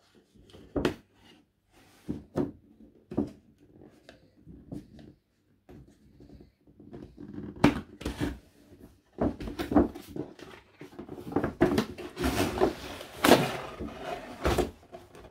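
Cardboard toy packaging being handled and cut open with a knife. There are scattered knocks and taps against the box, then denser scraping for the last few seconds as the blade works at the box top.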